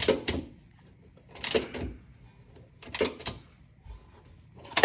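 Hand ratchet wrench cranked in short bursts of clicks, about four times, as a bolt is tightened.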